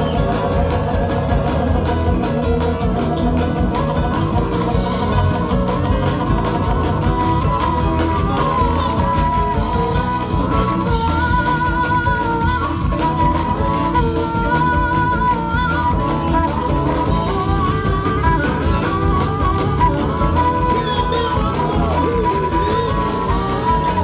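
Live blues band playing at full volume: electric keyboard and guitar, with a harmonica wailing long bending notes into a microphone and a woman singing.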